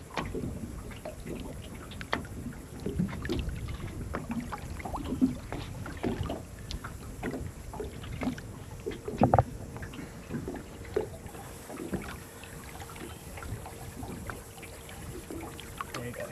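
Small irregular knocks, bumps and clicks of gear and people moving about in a small fishing boat, with one sharper knock about nine seconds in.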